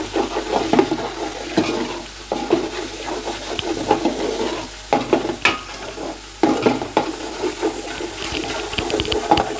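Metal spoon scraping round a large metal pot in quick irregular strokes, stirring chili powder into hot oil with onion and ginger-garlic paste, which sizzles as it fries.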